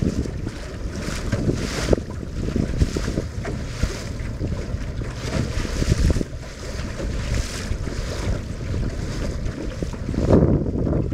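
Wind buffeting the microphone in gusts, with choppy water splashing against the hull of a Melonseed skiff under sail. A stronger gust swells near the end.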